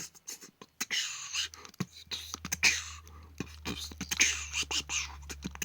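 A person making rapid, breathy hissing and clicking mouth sounds in a beatbox-like pattern, improvised vocal sound effects rather than words.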